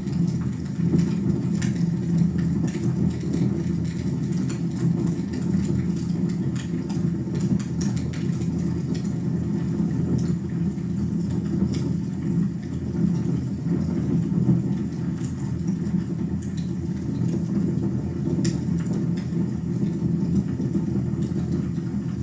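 Fireplace fire burning: a steady low rumble with scattered small crackles and pops.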